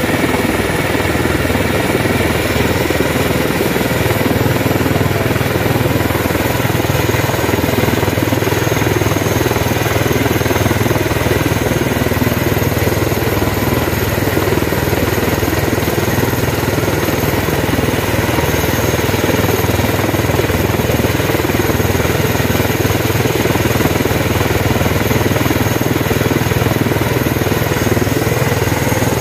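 Airbus H145 helicopter running on the ground with its main rotor turning: a steady, high turbine whine over the rotor and engine noise, holding an even level throughout.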